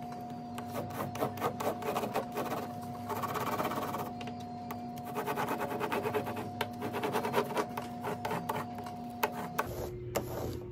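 Wax crayon, its paper wrapper removed, rubbed on its side back and forth over paper laid on a plastic texture sheet. It makes a fast scratchy rattle of tiny clicks as it skips over the ridges, coming in repeated strokes.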